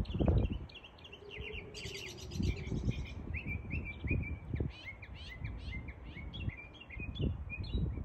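Small songbirds singing, a quick run of repeated chirps and trills with a buzzier trill about two seconds in. Under them, gusts of wind rumble on the microphone, strongest just after the start.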